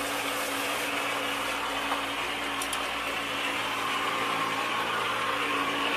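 Steady hiss of water jetting hard from a brass hose spray nozzle, over a steady mechanical hum.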